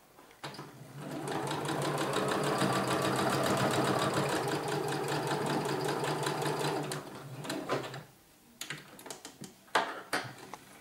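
Domestic electric sewing machine sewing a topstitch along a laid-down seam. It speeds up within the first second, runs at a steady stitching rhythm, then slows and stops about eight seconds in. A few sharp clicks and knocks follow.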